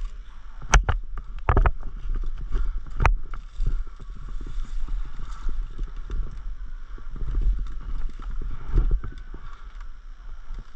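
Footsteps and rustling of a player moving through undergrowth, with a few sharp snaps or clicks about a second in and again near three seconds, over a low rumble of wind or handling on the microphone.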